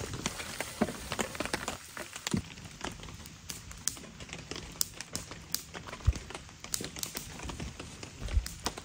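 Wood campfire crackling, with irregular sharp snaps and pops.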